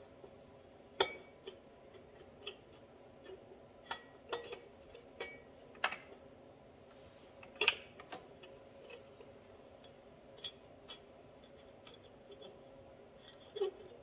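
Light, irregular metallic clicks and taps as the finned cylinder of a Suzuki LT80 two-stroke engine is eased down over the new piston and onto the cylinder studs.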